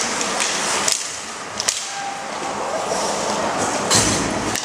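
Ice hockey play on the rink: a few sharp clacks of sticks and puck over steady arena noise, with a heavier thud about four seconds in.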